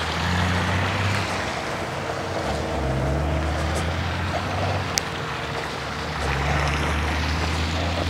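Honey bee swarm buzzing: a steady drone of many bees, its pitch wavering slightly, with one sharp click about five seconds in.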